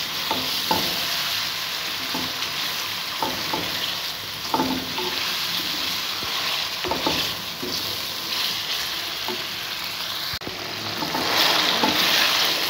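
Chicken and peas sizzling in ghee in a metal pan, stirred with a slotted spatula that scrapes and knocks against the pan every second or two. The sizzle grows louder near the end.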